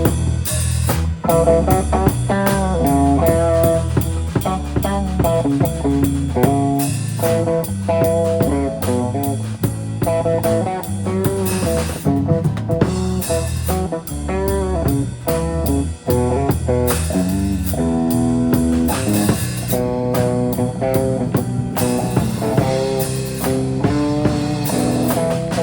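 Live blues-rock band playing an instrumental break: electric guitar playing a melodic lead over bass guitar and drum kit.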